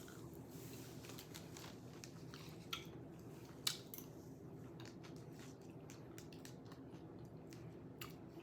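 A person quietly chewing a shrimp quesadilla, with faint wet mouth clicks scattered through and two slightly louder ones a few seconds in. A steady low hum runs underneath.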